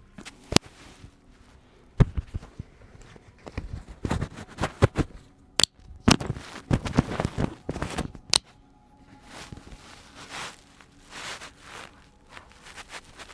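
Hands-on chiropractic manipulation: several sharp cracks or knocks, the loudest about half a second, two, five and a half and eight seconds in, with dense rustling and rubbing between them from about four to eight seconds in. Softer rubbing sounds follow near the end.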